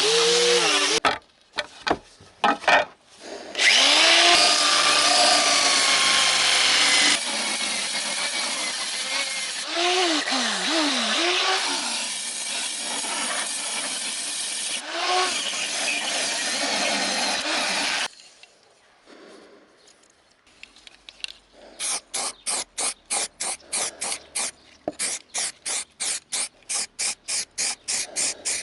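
Angle grinder with a paint-stripping disc running against sheet metal, its pitch dipping and recovering under load, stopping briefly a few times and cutting off about two-thirds of the way through. After a short quiet pause, a rapid, even rattle at about four beats a second starts near the end.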